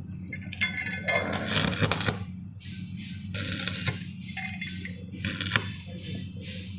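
Metal pieces clinking and scraping in several short bursts over a steady low electrical hum.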